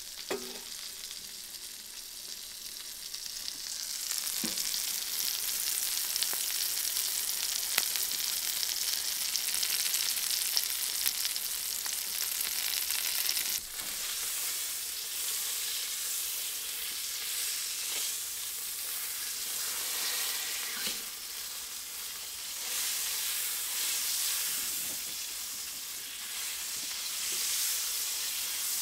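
Steady sizzling on a hot stove, as of food frying in a pan, growing louder about four seconds in, with a few faint clicks and taps.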